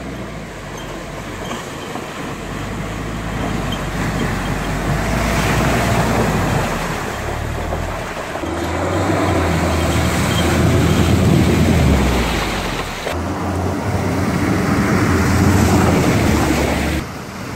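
An off-road SUV driving through a shallow rocky stream, with water splashing and rushing around its tyres and the engine running under load. A deep, steadily stepping bass line, typical of electronic background music, runs beneath it. The rushing is loudest in the middle and again near the end, and changes abruptly twice.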